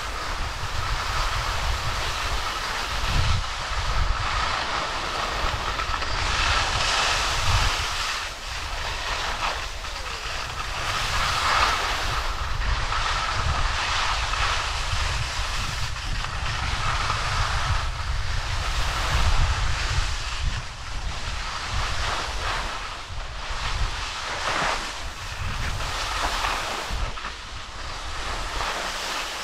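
Skis sliding and scraping over packed snow, a hiss that swells and fades in surges every few seconds, with wind buffeting the microphone as a low rumble.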